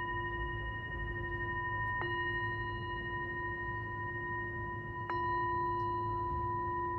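Tibetan singing bowl struck twice, about two and five seconds in, each strike ringing on as a steady low tone with clear higher overtones, the ring of the earlier strike still sounding under each new one.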